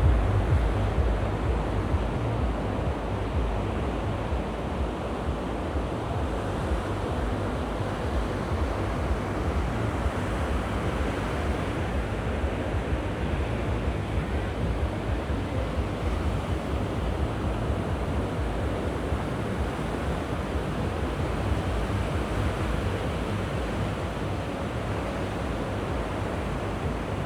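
Mediterranean sea waves washing onto the shore in a steady surf, with wind buffeting the microphone as a low rumble, heaviest in the first couple of seconds.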